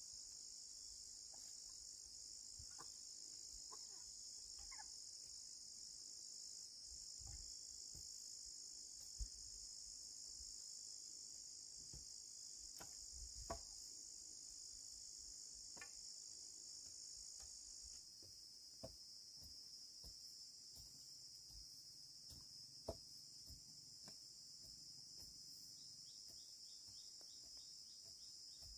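Steady, high shrill chorus of insects, with a few faint knocks.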